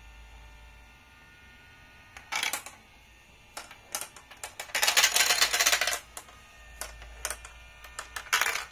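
Marbles rolling and clattering through clear plastic marble-run track: a few short rattles and single clicks, with one longer, louder clatter around the middle, over the faint low hum of the auger lift's motor.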